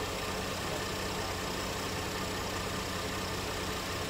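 A vehicle engine idling steadily, a low even hum over a constant rushing noise.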